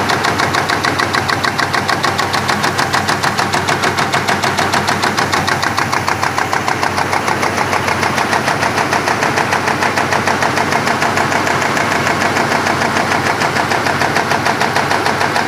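A 45-ton automatic high-speed punching press runs continuously, stamping metal parts in a fast, even rhythm of strokes.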